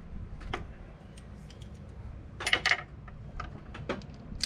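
Wrench clinking against metal while being fitted to the alternator's adjusting bolt: scattered light clicks, with two louder clinks about two and a half seconds in.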